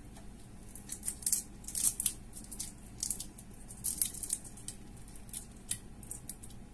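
Small shrimp being peeled by hand: irregular crisp crackles and snaps as the shells break and tear away, thickest through the middle seconds.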